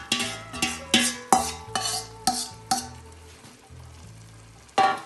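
A metal spoon knocking and scraping against a metal mixing bowl as marinated chicken is spooned into a hot pot. There is a quick run of clanks, each ringing briefly, then a quieter stretch and one loud clank near the end, with a soft sizzle underneath.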